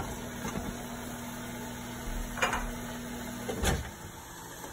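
Quiet kitchen background: a steady low hum under a faint even hiss, with a light click about halfway through and a soft knock a little before the end, where the hum stops.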